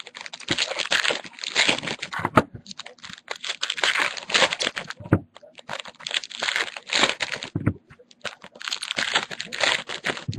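Foil trading-card pack wrappers crinkling and tearing as packs are ripped open by hand, in repeated bursts with short pauses between them.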